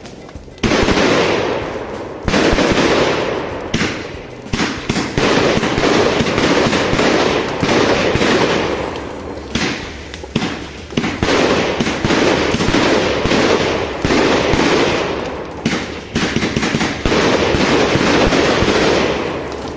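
Fireworks barrage going off: a long run of loud bangs and dense crackling that comes in repeated waves, each starting suddenly and dying away over a second or two.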